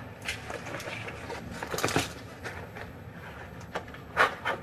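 Rustling and handling noises from someone fumbling through his coat: a few short rustles and knocks, the two sharpest near the end.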